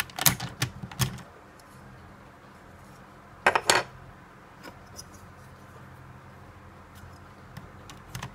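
Hard plastic clicks and clacks from a DX Ixa Belt toy as a Fuestle is slotted into its buckle and pushed home: a few clicks in the first second, a sharper clack about three and a half seconds in, then faint ticks and another burst of clicks at the very end.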